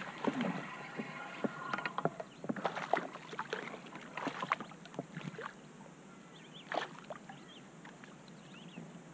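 A hooked smallmouth bass splashing and thrashing at the surface beside a kayak, with many short splashes and knocks over the first five seconds. A single sharp splash comes near seven seconds, then it goes quieter.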